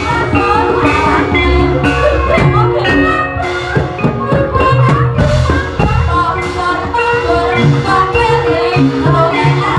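Loud Javanese gamelan music for the ebeg horse dance, played over loudspeakers: steady drum strokes under held metallophone tones and a wavering singing voice.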